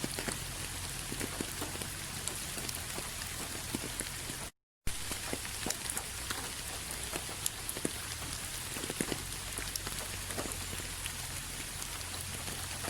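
Steady rain falling, with a constant hiss and many individual drops striking close by. The sound cuts out completely for about half a second around four and a half seconds in, then resumes.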